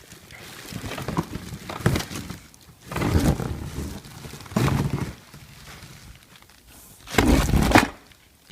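Packaging being handled during an unboxing: a run of separate rustling, scraping noises with thumps, five or so in all, the loudest near the end.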